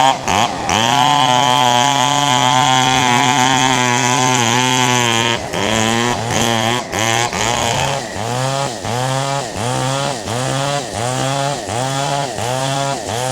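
Two-stroke chainsaw running at high revs. From about eight seconds in, the engine speed rises and falls in a steady rhythm, a little more than once a second.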